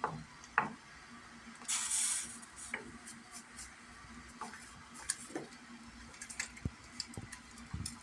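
A wooden stick whisk stirring thick nettle soup in a steel pot, with scattered light clicks and knocks against the pot. A short hissing burst comes about two seconds in.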